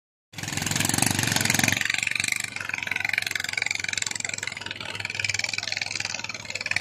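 Small boat's engine running steadily with a rapid, even putter, fuller for the first second or so and then level.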